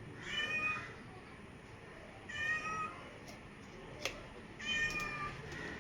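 A cat meowing three times, each meow about half a second long and about two seconds apart. Two short clicks fall between the second and third meows.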